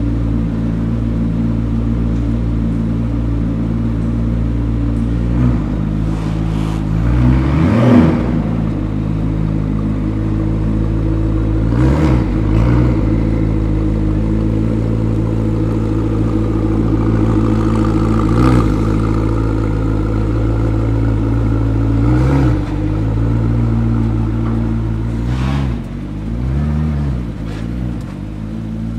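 McLaren P1's twin-turbo V8 idling, revved briefly about six times, each blip rising and falling back to idle, the one about eight seconds in the loudest.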